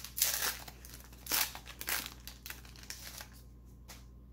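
Crinkling and tearing of a Pro Set football card pack's wrapper as it is opened, in several short bursts over the first three seconds, then quieter.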